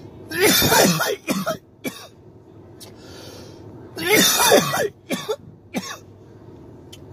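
A man coughing hard on smoke in two fits, about a second in and about four seconds in, each a run of harsh coughs trailed by a few short, weaker ones.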